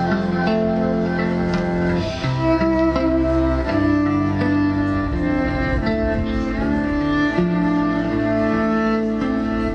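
Electric cello played with a bow, its held melody notes layered over a looped bass line and further looped cello parts.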